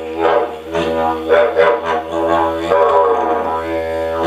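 Didgeridoo playing a steady low drone, its overtones swelling and shifting in a repeating rhythm.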